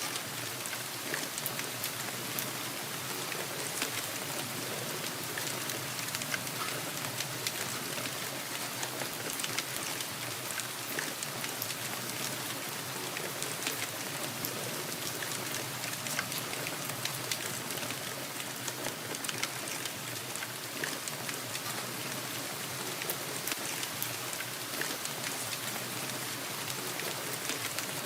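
Steady rainfall: an even hiss with many fine, close-spaced drop ticks.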